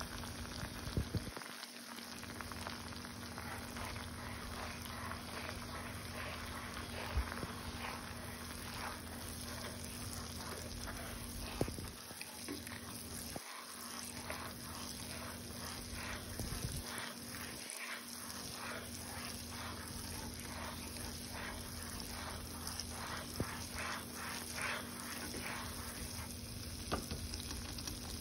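Melted butter bubbling and sizzling in a pan as spices are stirred into it with a spatula, with a steady crackle and a few sharp clicks of the spatula against the pan.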